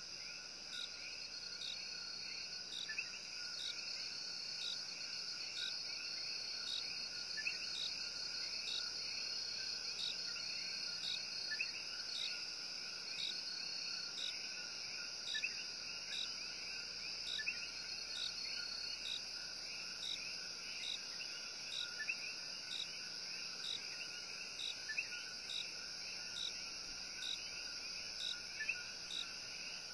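Rainforest night-chorus ambience: many coquí frogs calling over a steady high-pitched insect buzz, with a short chirp repeating regularly about every two-thirds of a second.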